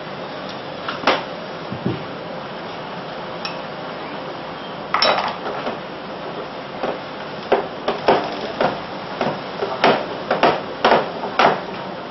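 Kitchen knife cutting pumpkin on a cutting board: a few scattered clicks, then from about halfway a run of sharp knocks, roughly two a second, as the blade strikes the board.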